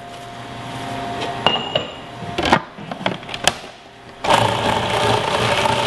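A few sharp clicks and knocks, then about four seconds in a food processor's motor switches on and runs steadily, pureeing fresh basil with ground walnuts and garlic for pesto.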